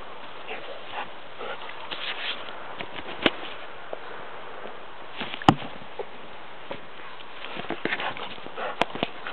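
A dog sniffing and scrabbling at loose soil inside a burrow it has dug, with irregular short rustles and a few sharp knocks, the loudest about halfway through.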